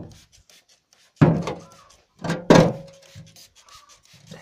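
A hand trigger sprayer squirting petrol onto an oily, finned air-cooled engine cylinder barrel while the part is handled, with rubbing and scraping. The loudest moments come about a second in and again around two and a half seconds in.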